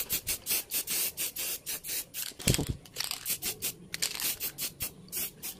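Aerosol spray-paint can (Sherlux Art Yellow) hissing in short repeated bursts, a few a second.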